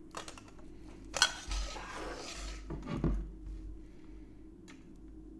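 Plastic petri dishes and a glass bottle of melted LB agar clicking and knocking as they are handled to pour an agar plate. There is a sharp click about a second in, followed by a second or so of hissy rustling.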